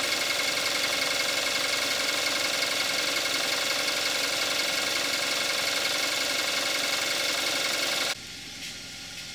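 2014 Kia Forte5's 2.0-litre gasoline direct-injection four-cylinder idling warmed up on 5W-30 synthetic oil, a steady engine sound with a busy fast ticking clatter. About eight seconds in it cuts off suddenly, leaving a quieter, more distant engine sound.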